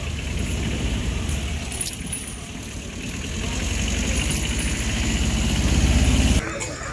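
A vehicle engine running with a steady low rumble, growing louder, then cutting off abruptly near the end.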